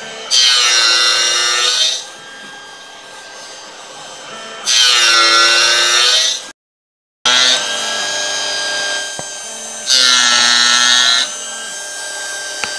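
CNC spindle running a 0.8-module disc gear cutter through a brass gear blank: three loud cutting passes of about a second and a half each, with the spindle running steadily between them. The sound breaks off for a moment after the second pass.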